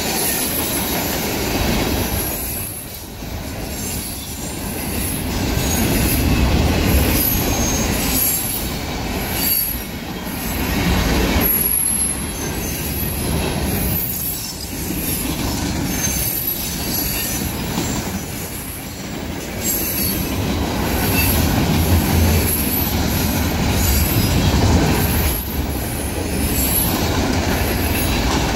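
Freight cars of a manifest train rolling past at speed: steel wheels running on the rails, the noise swelling and dipping every few seconds as cars go by, with intermittent high-pitched wheel squeal.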